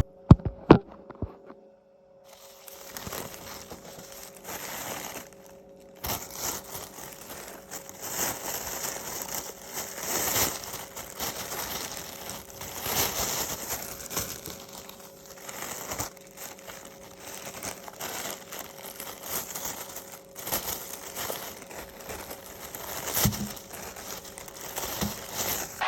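Plastic wrapping rustling and crinkling as it is handled, with many light clicks and knocks mixed in; two sharp clicks near the start.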